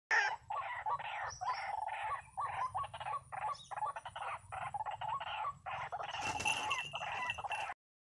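White-breasted waterhen calling in a fast run of short, repeated harsh notes, about three a second. A higher, hissier sound joins near the end, and it all cuts off abruptly just before the end.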